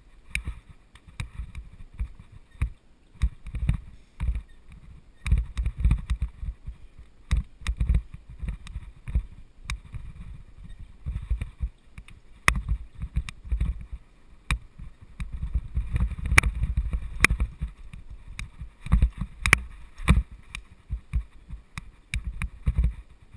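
Mountain bike rolling over rough dirt singletrack: a low, uneven rumble from the tyres on the trail, with frequent sharp rattles and knocks from the bike over bumps.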